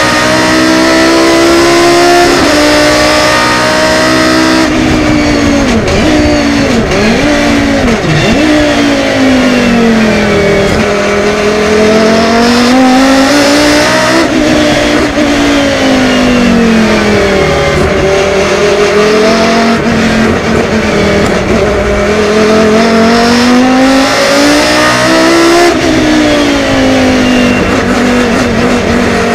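A 1996 Volvo 850 BTCC race car's naturally aspirated 2-litre five-cylinder engine under racing load. Its pitch climbs on acceleration and falls away in long sweeps into the corners, broken by a quick run of gear changes about six to eight seconds in and a sharp drop in pitch about three-quarters of the way through.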